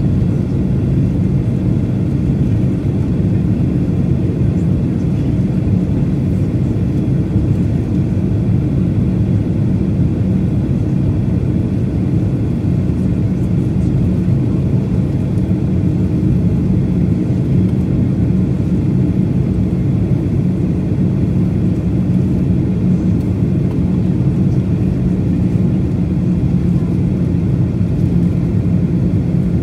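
Jet airliner cabin noise during descent, heard from a window seat beside the engine: a steady low rumble with faint steady high tones above it.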